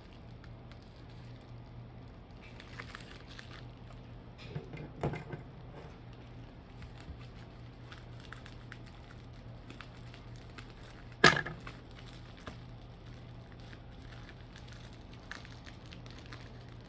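Quiet room tone with a steady low hum, broken by a few faint knocks and rustles and one sharp click about eleven seconds in.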